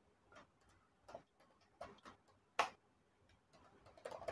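Computer keyboard keys clicking in faint, irregular strokes as code is typed, with one louder keystroke about two and a half seconds in and a quick flurry near the end.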